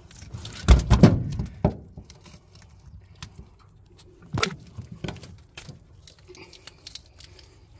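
Handling noise: a cluster of heavy thuds about a second in, then scattered light clicks and knocks as the knife and the phone are moved about over the fish.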